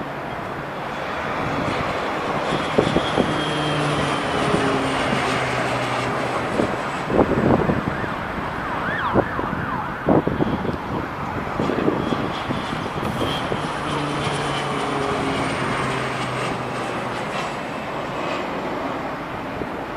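KT-1B Woong Bee single-engine turboprop flying past, a steady engine and propeller drone with a high whine that falls slowly in pitch, twice. Gusts of wind hit the microphone now and then.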